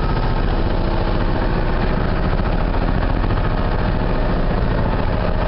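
Small wooden fishing boat's engine running steadily with a fast, even low thumping as the boat moves through choppy water, with a hiss of wind and water under it.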